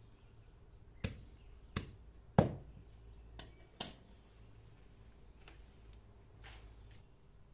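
A large knife chopping through bundles of fresh herb stems, four sharp chops spaced unevenly over the first four seconds, the third the loudest.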